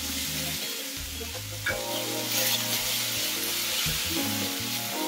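Sliced onions, bell peppers and tomatoes sizzling in oil in a stainless steel pan while stirred with a wooden spoon, over background music.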